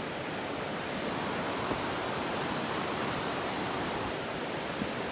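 A steady, even rushing noise with no pitch or rhythm.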